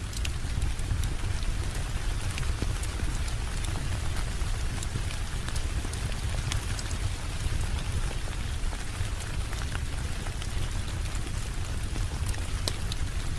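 Steady rain falling, an even hiss with scattered sharp ticks of single drops and a low rumble underneath.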